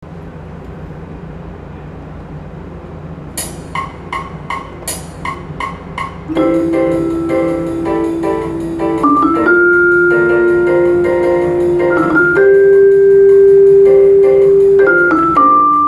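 Eight evenly spaced clicks about 0.4 s apart, then a bossa nova piece begins about six seconds in. A Yamaha 3.5-octave gold vibraphone, struck with medium yarn mallets, plays long ringing notes over a backing track.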